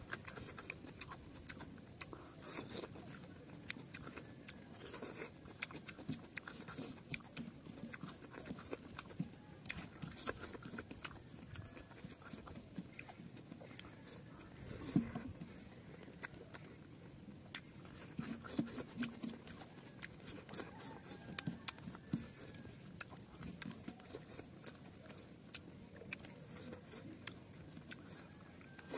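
Close-up chewing and lip-smacking of a person eating rice by hand, with many irregular wet mouth clicks.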